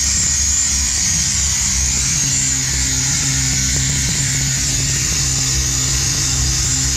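Live electronic music played on synthesizers and effects units: a steady high hiss over a low droning hum.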